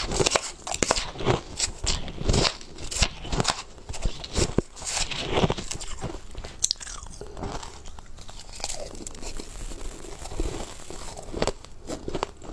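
Crushed ice being chewed with crisp, irregular crunches, dense at first and sparser in the second half.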